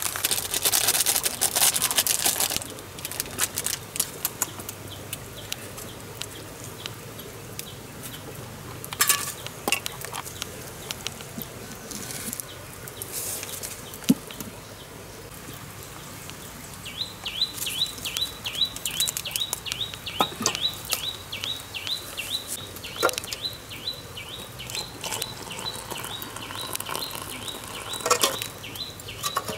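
A plastic food packet is torn open and crinkled for the first couple of seconds, followed by a few scattered handling clicks. From a little past halfway, a high chirping call repeats about three times a second in the background. Near the end, water is poured into a plastic mug.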